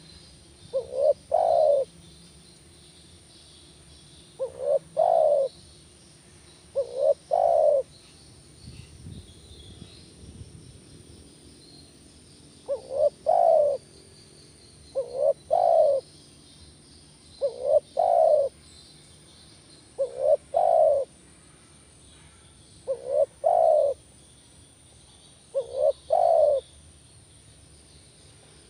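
Spotted dove cooing: a short phrase of a few coo notes, repeated about every two to three seconds, nine times, with a longer pause near the middle.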